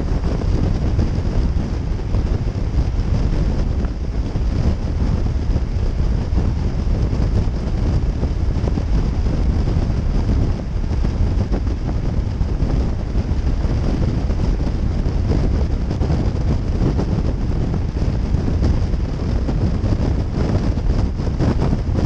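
Steady wind rush and buffeting on the microphone of a motorcycle-mounted camera at highway speed, with the motorcycle's running and road noise blended underneath.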